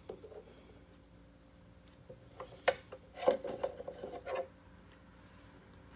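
A few sharp clicks and short rubbing, rustling noises of handling, bunched in the middle, the loudest two about half a second apart.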